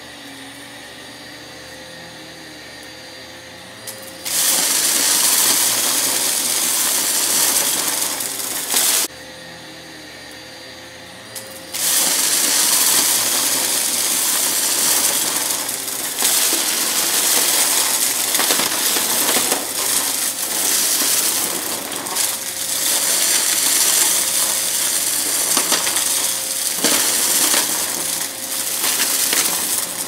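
Vacuum cleaner sucking up a pile of crunchy debris: at first just the motor running with a steady whine, then from about four seconds in a loud, dense crackling rattle of debris being pulled through it. The crackle drops back to the plain motor sound for about three seconds near the middle, then starts again and carries on.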